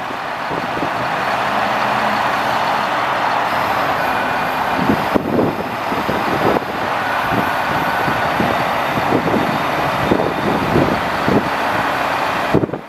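A grapple truck's Caterpillar C7 diesel engine running steadily to drive the hydraulics while the grapple boom is worked. Irregular low rumbles of wind hit the microphone.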